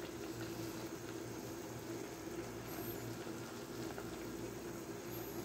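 Pot of sotanghon glass-noodle soup bubbling gently on a gas stove: a faint, steady simmering hiss.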